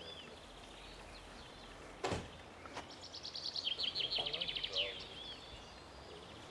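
Songbirds singing: short whistled calls, and from about three seconds in a fast trill of repeated high notes lasting under two seconds. A single sharp knock about two seconds in.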